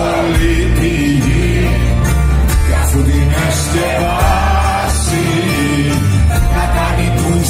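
Live band music from acoustic guitar, a lute and a drum kit, with singing.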